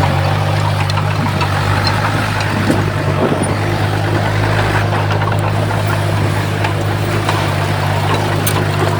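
Heavy diesel earthmoving machinery running steadily, with a few faint clicks and knocks over the engine hum.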